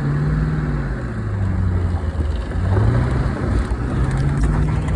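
Ford Mustang engine running and revving, its pitch rising and falling several times under the throttle.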